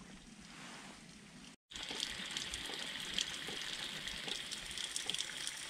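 A small trickle of water running and dripping down a crevice between boulders: a steady splashing hiss with fine drips. It starts abruptly about a second and a half in, after a quieter stretch.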